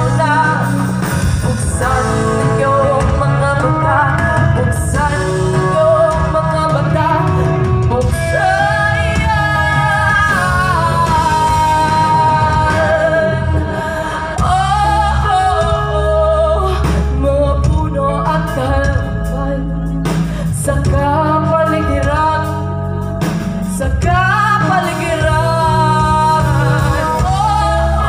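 Live band music: a woman sings the lead melody with a wavering vibrato over bass guitar, electric guitar and drums.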